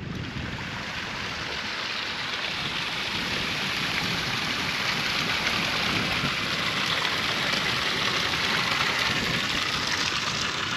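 A small mountain stream running over rocks in a steady, hissing rush that grows gradually louder through the clip.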